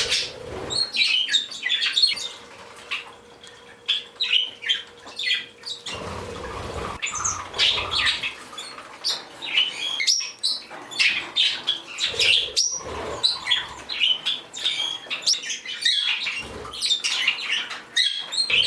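A room of pet parakeets (budgies and Bourke's parakeets) chirping and chattering continuously, with squawks mixed in.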